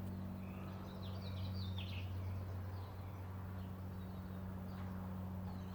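Ducklings peeping: a cluster of quick, high, falling peeps between about half a second and two seconds in, then a few scattered peeps, over a steady low hum.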